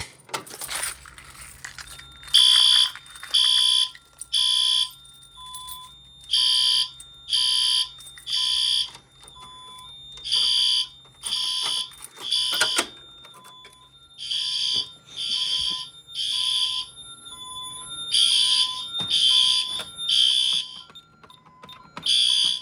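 Honeywell Vista fire alarm sounding in the temporal-three evacuation pattern, set off by a pull station test: three loud blasts about a second apart, then a pause, repeating over and over, with fainter short beeps between the blasts.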